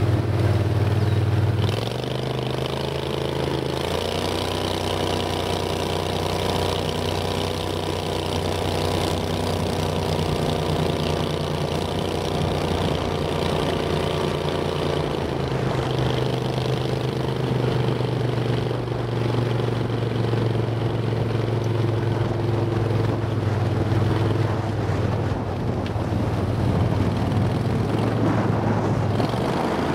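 Boat engine running steadily under way, its pitch rising a little about four seconds in and easing down slightly around fifteen seconds in as the throttle changes.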